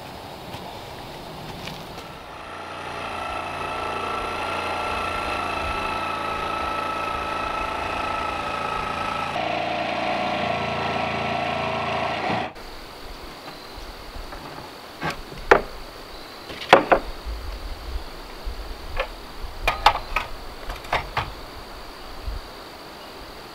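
A machine running steadily with a constant whine for about ten seconds, cutting off abruptly. Then a string of short, sharp knocks and taps, irregular, with several in quick pairs.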